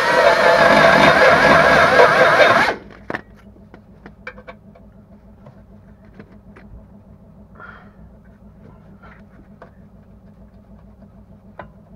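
A power tool's motor running hard, its pitch wavering under load, then cutting off suddenly about three seconds in; after that only scattered light clicks and knocks of tools being handled.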